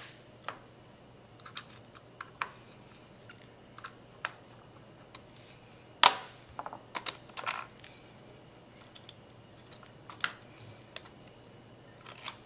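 Scattered light clicks and taps of small hand tools and plastic R/C truck parts being handled while a gear cover and wheel are refitted. The sharpest knock comes about six seconds in, with a quick run of clicks just after it.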